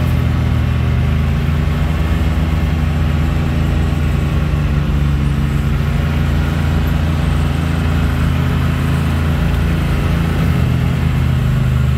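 Side-by-side UTV engine running steadily at low driving speed on a sand trail, a constant low engine note that shifts slightly in pitch about halfway through and again near the end.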